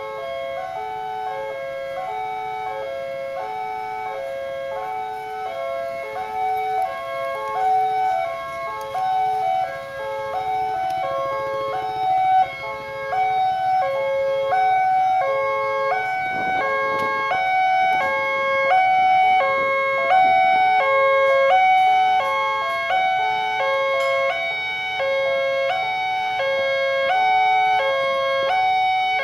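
Railway level-crossing electronic warning bell sounding continuously, alternating evenly between two tones a little over once a second. It is the crossing's alarm, with the red lamps flashing and the barrier down for an approaching train.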